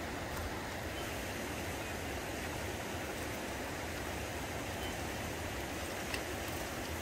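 A fast, stony river rushing steadily, with one faint click about six seconds in.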